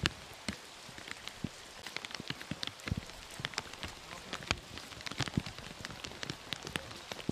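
Rain falling steadily on a wet, puddled street, with many separate drops heard as sharp taps over the steady hiss.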